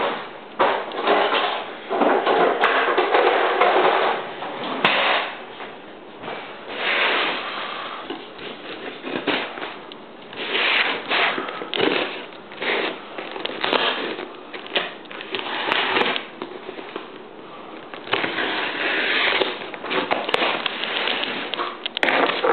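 Irregular rustling, scraping and knocking from a cardboard shipping box being handled and cut open. The sounds come in bursts of a second or two, with short lulls and a few sharp clicks between them.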